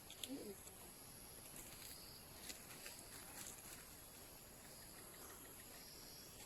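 Near silence with a faint, steady high-pitched insect buzz, like crickets, and a few faint short chirps.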